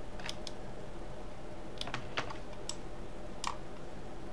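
Scattered clicks of a computer keyboard and mouse buttons, irregular, with a few close together about two seconds in.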